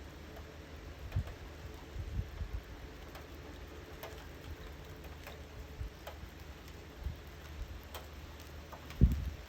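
Scattered storm drops ticking one by one on a hard surface over a steady low rumble, with a few dull low thumps, the loudest about nine seconds in.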